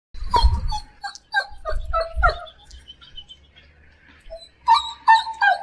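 Dog whimpering: a run of short high whines, each falling in pitch, then a pause and another run near the end. Low rumbling sits under the first few whines.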